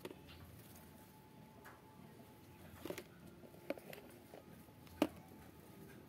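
Quiet, scattered light taps and clicks, about half a dozen at uneven intervals, the sharpest about five seconds in, from small aviary birds pecking at their food and moving about.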